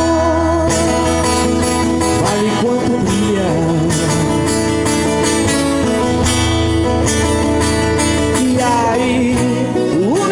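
A singer holding long notes with some vibrato and pitch slides over strummed and plucked acoustic guitar, a live voice-and-guitar performance of a Brazilian pop song.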